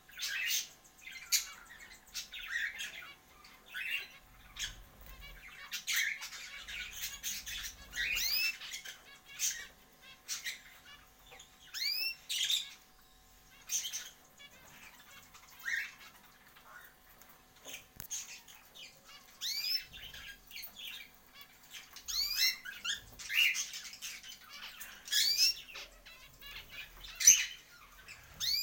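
A group of small pet birds chirping and squawking, many short rising calls overlapping at irregular intervals, with occasional sharp clicks.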